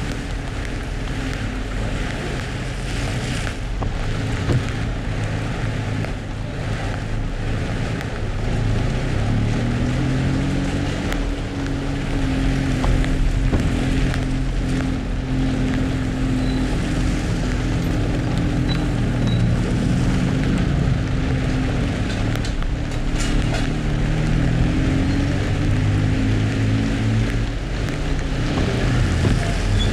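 Car engine running while driving, its pitch rising and falling several times as the revs change, over a steady hiss of rain and tyres on a wet road.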